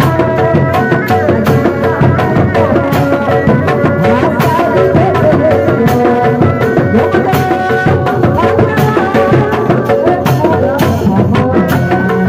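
Sundanese dog-dog street ensemble playing: hand-struck kendang and dogdog drums with a large bass drum keep a fast, steady rhythm, and a sustained melody line runs above the drumming.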